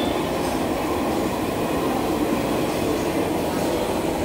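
Steady background chatter of many diners talking at once in a crowded restaurant dining room, with no single voice standing out.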